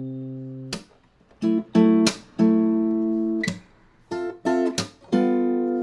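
Background music: acoustic guitar strumming chords, each chord ringing briefly with short gaps between them.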